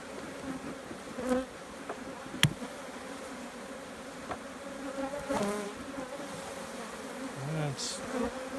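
Honeybees from an opened hive buzzing steadily, a low even hum, with one sharp click about two and a half seconds in.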